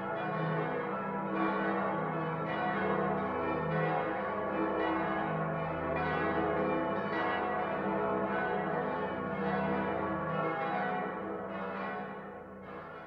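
Many large church bells pealing together in overlapping, long-ringing strokes: the combined city peal of Frankfurt's churches. The ringing dies away near the end.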